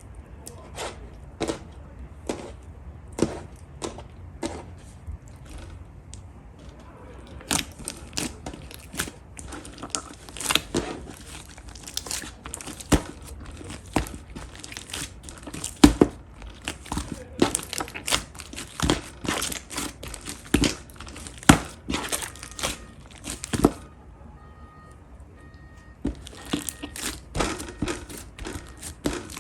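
Pastel pink slime being pressed, stretched and folded by hand, giving irregular sticky clicks and crackling pops as air pockets burst. The pops grow louder and denser after the first several seconds, with a short lull near the end.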